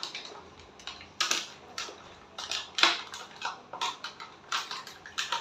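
Plastic toys being handled and set down, making irregular clicks and clattering knocks.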